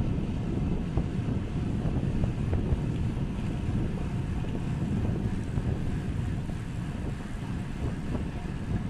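Wind buffeting a camera microphone on a moving bicycle: a steady low rumbling rush with a few faint ticks.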